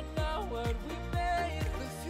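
Background music: an electronic pop track with a kick drum beating about twice a second under a held melody line.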